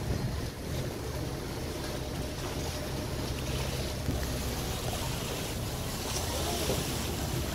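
Boat engine running with a steady low hum, under the hiss of water rushing along the hull.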